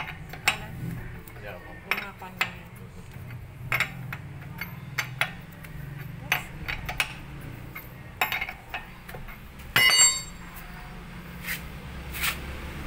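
Metal clicks and knocks of a socket wrench on the wheel nuts of a Toyota Avanza's alloy wheel as the nuts are tightened after a brake pad change, with one louder ringing metal clink about ten seconds in. A steady low hum runs underneath.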